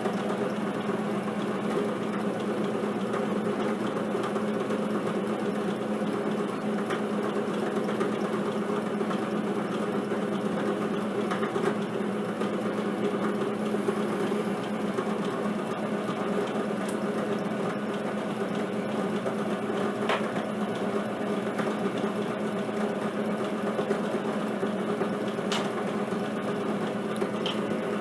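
Drill press running steadily with a diamond-tipped core drill cutting into Petoskey stone: an even motor hum over a rough grinding noise, with a few sharp clicks near the end.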